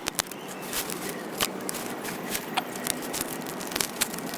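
Scattered light clicks and taps of hands handling things in a kitchen, over a steady background hiss.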